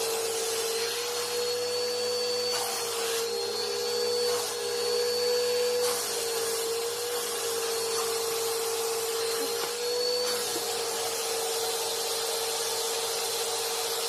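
Bissell vacuum cleaners running together through hoses taped into one triple nozzle, a steady motor hum with a high whine. The hum wavers slightly in pitch while the nozzle is worked over the floor, then holds steady for the last few seconds.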